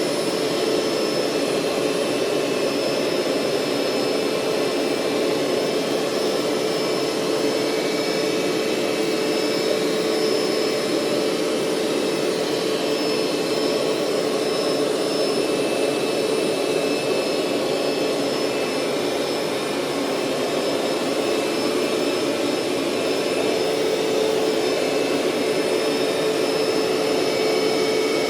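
Hoover SteamVac SpinScrub 50 carpet cleaner running steadily: a constant rush of suction with a steady whine from its motor.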